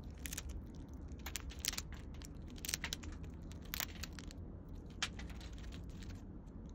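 A young Eurasian red squirrel gnawing a pine cone, its teeth cracking and tearing off the scales in irregular sharp crunches.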